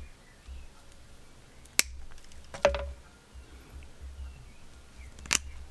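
Bonsai knob cutters snipping old stubs off a Japanese maple's branches, the rounded jaws biting into the wood: three sharp snips, two about a second apart near the middle and one near the end.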